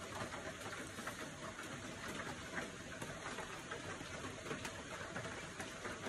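Steady rain falling: an even hiss with scattered small ticks of drops.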